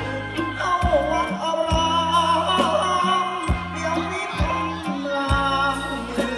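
Live Thai ramwong band playing through a PA: a man singing into a microphone over a steady bass line and a drum hit about once a second.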